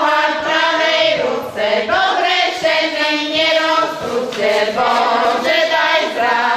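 A women's folk singing group singing a song together in full voice, with long held notes and short breaks between phrases.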